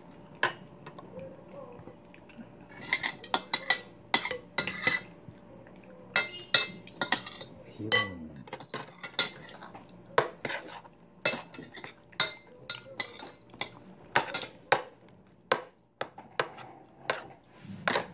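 Metal forks and spoons clinking and tapping against ceramic plates and bowls during a meal, in many irregular sharp clinks, some with a short ring.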